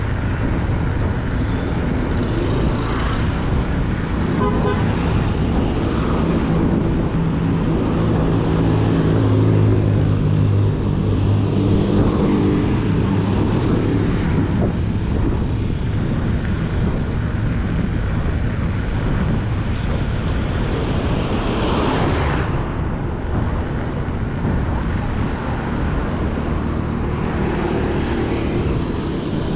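Bicycle tyres rolling on a road, a steady rumble of road noise. A motor vehicle's engine hum swells and fades between about 6 and 15 seconds in, and another vehicle whooshes past at about 22 seconds.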